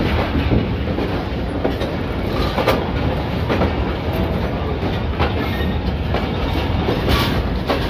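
Pakistan Railways passenger train rolling along the track beside the platform: a steady rumble of the coaches with repeated wheel clacks over the rail joints.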